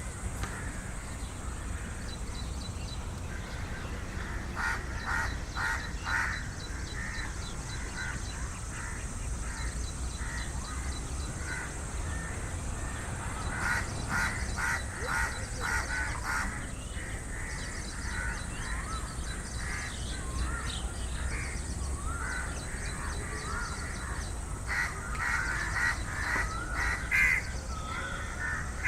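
Crows cawing in three runs of rapid calls, with fainter chirps of other birds between them and a low rumble underneath.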